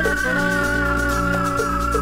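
Music played from vinyl in a DJ mix: sustained bass and chord notes under a high, wavering tone that slowly falls in pitch.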